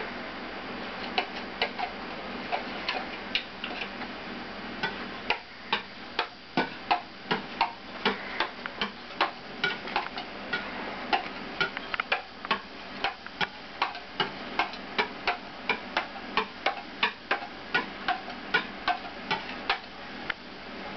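Metal scraper and spatula clicking and scraping on a stone countertop as melted chocolate is spread and gathered to temper it, about two or three sharp clicks a second over a steady hiss.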